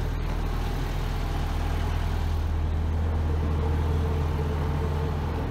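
Engine of a welding rig truck idling, a steady low hum at an even level.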